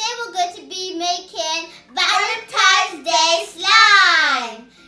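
Young girls singing a short sung chant, ending in a long note that slides down in pitch.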